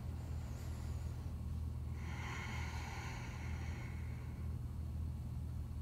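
A person breathing out slowly and audibly, one soft exhale of about two seconds starting about two seconds in, over a steady low hum.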